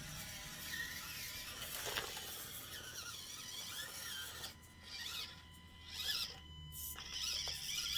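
Axial Deadbolt RC crawler's electric motor and gears whining faintly as it crawls off the start, the pitch wavering up and down with the throttle.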